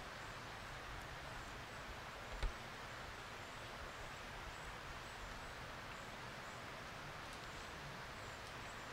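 Faint, steady outdoor woodland ambience, a soft hiss with faint high ticks, and a single short knock about two and a half seconds in.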